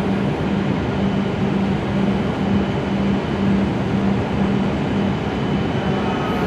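E7 series Shinkansen train standing at the platform with its onboard equipment running: a steady mechanical noise with a low hum that pulses on and off in an even rhythm.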